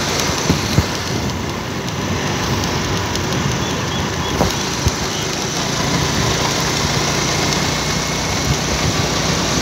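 A motor vehicle's engine running under steady road and wind noise, heard from aboard the vehicle as it drives along, with a few short knocks.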